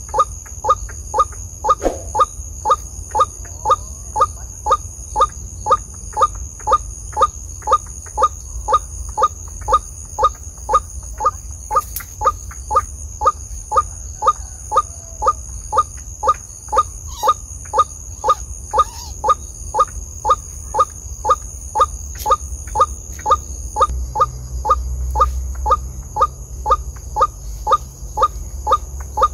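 White-breasted waterhen's 'ruak-ruak' call repeated over and over at about two calls a second, each a short rising note, in an unbroken monotonous series.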